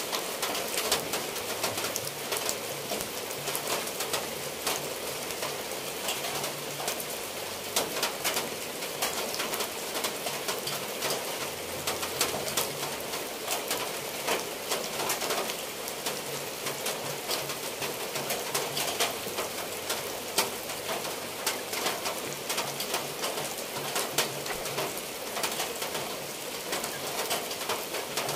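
Steady rain falling on clay roof tiles and foliage, with water dripping and streaming off the eaves in many small patters. A bird calls in the background with low, repeated notes.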